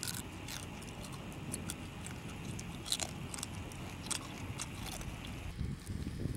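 A person biting and chewing cooked crab, with scattered sharp crunches and mouth clicks over a low steady rumble.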